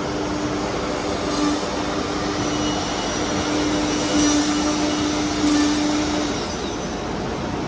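Four-spindle CNC nesting router cutting furniture board, a steady machine whine over a constant rush of noise from the machine and its dust extraction. The whine drops out about six seconds in.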